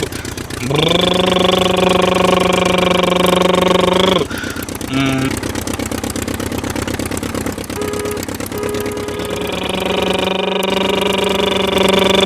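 A man imitating a car engine with his voice: a long held 'brrrm' hum whose pitch rises as it starts, then a rattling, trilled stretch, then another held hum near the end.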